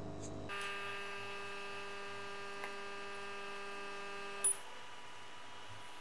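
Steady electrical hum made of several even tones, cut off by a short click about four and a half seconds in, leaving only a faint hiss.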